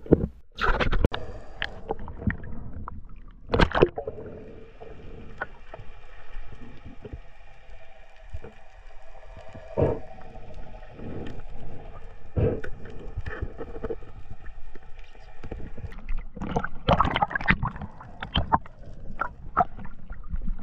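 Underwater sound picked up by a diver's action camera: irregular knocks, clicks and scrapes as a spider crab and speargun are handled, over a faint steady hum from about four seconds in until a few seconds before the end.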